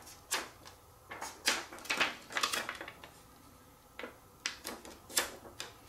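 Thin clear plastic transparency sheet crackling in short, irregular bursts as it is bent by hand along a score line and creased.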